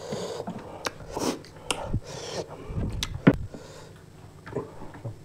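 Close-miked eating sounds of fried chicken being eaten by hand: chewing with sharp mouth clicks and smacks, and short rustling bursts.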